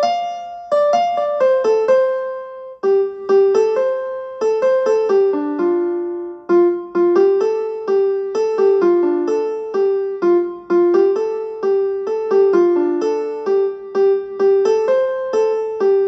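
Mobile phone ringtone playing: a looping melody of quick single notes with a keyboard sound, each note struck and then fading, a few notes a second in a repeating phrase.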